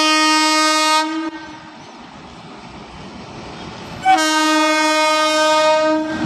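Indian Railways electric freight locomotive sounding its horn twice: a blast of about a second, then a longer one of about two seconds, with the running noise of the passing train between them.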